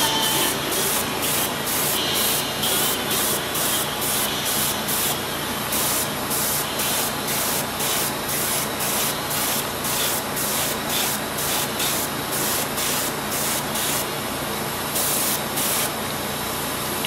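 Airbrush spraying thinned acrylic paint in short, repeated trigger bursts of hissing air, about two a second, pausing briefly near the end.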